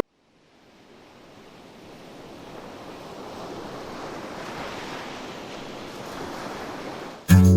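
Ocean surf: a steady wash of wave noise fading in slowly from silence and growing louder. Strummed acoustic guitar music cuts in just before the end.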